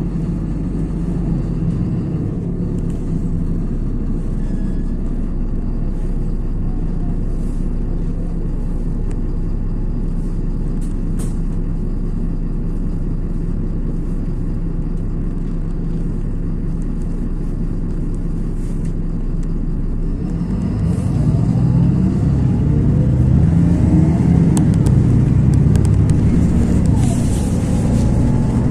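LiAZ 6213.22 articulated diesel city bus running, heard from inside the cabin: a steady low engine and road rumble that grows louder about twenty seconds in as the bus accelerates, the engine note rising several times.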